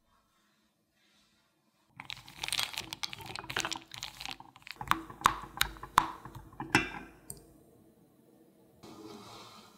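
Spatula stirring white coating-chocolate wafers in a glass bowl set over a saucepan of hot water to melt them. The hard wafers click and scrape against the glass, starting about two seconds in as a run of sharp clicks that lasts about five seconds, then give way to softer scraping near the end as the chocolate turns smooth.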